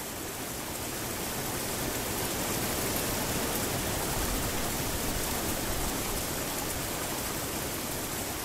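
Steady rushing of falling water, a waterfall pouring down, as an even hiss with no pauses.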